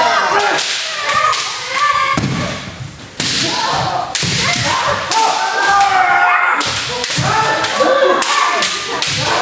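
Kendo sparring by several pairs at once: bamboo shinai clacking together and striking armour, stamping footwork thudding on a wooden floor, and loud kiai shouts, all overlapping in quick irregular succession.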